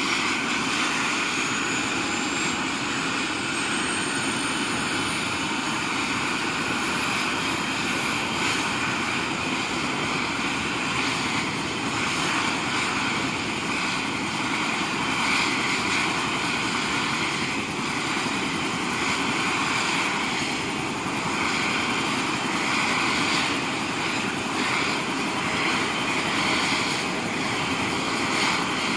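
Airbus EC120 helicopter running on the ground with its main rotor turning: a steady turbine rush and whine from its Turbomeca Arrius turboshaft and Fenestron tail rotor. A thin high whine rises in pitch over the first few seconds.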